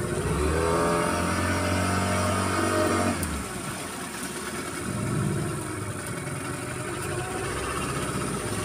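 Outboard motor running under way; its pitch climbs steadily for about three seconds as the throttle is opened, then drops off abruptly to a steadier, lower run.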